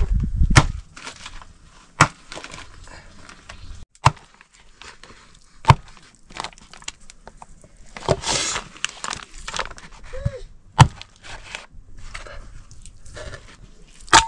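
A khukuri-style curved knife chopping toad meat on a wooden board, single sharp chops a second or two apart, with a stretch of scraping about two-thirds of the way through. A short metallic clink near the end as pieces go into a steel bowl.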